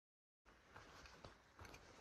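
Near silence: a dead-silent gap, then faint quiet ambience with a few soft ticks.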